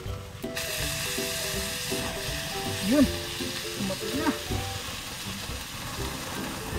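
Fat from a surahan fish grilling in banana leaves over charcoal sizzles hard on the coals, the hiss starting suddenly about half a second in and running steadily.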